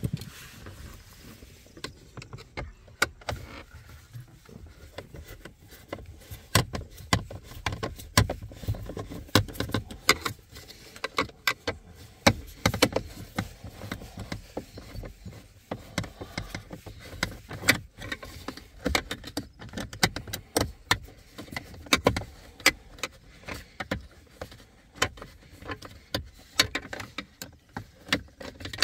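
A screwdriver and hands working the screws out of a car's dashboard trim: irregular small clicks and light metallic taps several times a second, with a few louder knocks.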